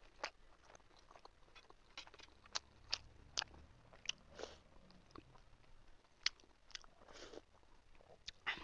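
Close-miked mouth sounds of a person eating a chicken momo: chewing with many small wet smacks and sharp clicks, and a sip of soup from a spoon about four seconds in.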